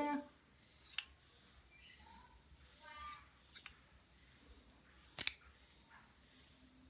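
Steel Japanese tailor's shears worked by hand, the blades closing with a few sharp metallic clicks. The loudest snap comes about five seconds in, after a lighter click about a second in.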